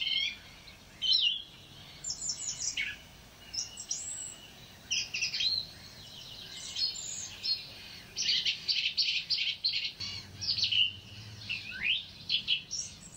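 Songbirds singing: repeated chirps, whistled notes that slide up and down, and quick trills.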